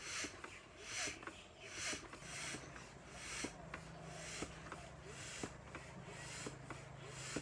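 Hand-operated stand air pump being worked up and down, a whoosh of air with each stroke at a little more than one stroke a second, inflating an inflatable water-fountain toy.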